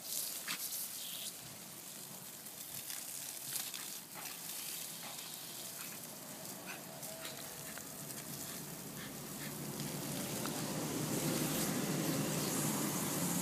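Garden water jet spraying in an arc and spattering onto grass: a steady hiss with scattered small splashes, growing louder over the last few seconds.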